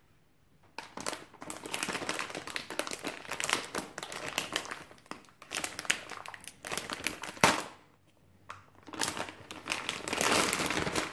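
Plastic anti-static bag around a graphics card crinkling as it is handled and opened, in irregular bursts that start about a second in, pause briefly about eight seconds in, and pick up again.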